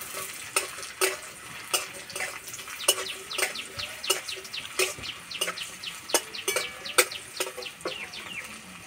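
Cashews, raisins and whole spices frying in hot ghee and oil in a steel karai, crackling and spitting, with a metal spatula scraping and knocking against the pan at irregular moments.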